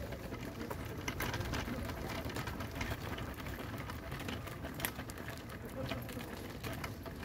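Wheelchair wheels rolling and footsteps on a rough garden path: an uneven patter of small crackles and clicks over a low rumble.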